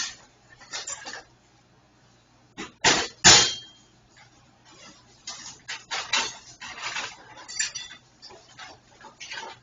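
Metal parts clinking and clattering as they are handled and rummaged through, with two louder knocks about three seconds in.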